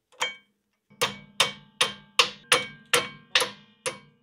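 A hammer tapping on a new rear brake caliper while the brake pads are fitted. One tap comes just after the start, then from about a second in a steady run of about eight sharp metallic taps, two to three a second, each with a short ring.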